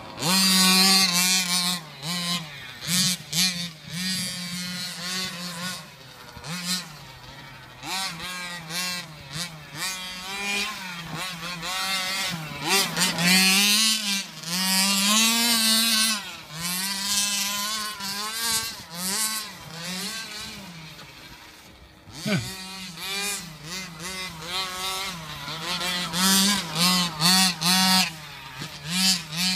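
Small two-stroke gas engine of a 1/5-scale Redcat RC car, revved up and let off again and again as it laps a loose dirt track. Its buzzing note keeps rising and falling, with a brief drop about two-thirds of the way through.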